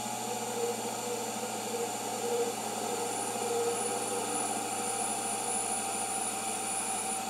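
Emco Unimat SL mini lathe running with a steady whine while a turning tool faces the back of a small aluminium wheel.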